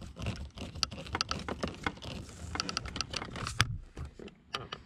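Screwdriver backing a screw out of the plastic lower dash trim: a quick, irregular run of small clicks and scraping that stops about three and a half seconds in, followed by a few single clicks.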